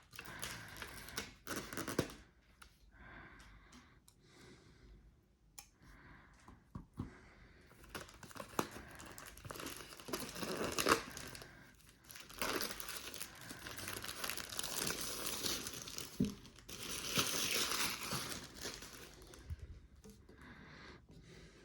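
Packaging crinkling and tearing as it is handled and pulled open, in irregular rustling stretches with scattered sharp clicks; the loudest rustling comes about halfway through and again near the end.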